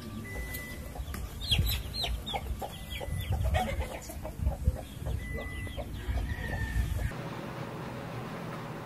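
A hen clucking over and over, with high, quickly falling peeps from chicks mixed in. The sound cuts off about seven seconds in, leaving a steady hiss.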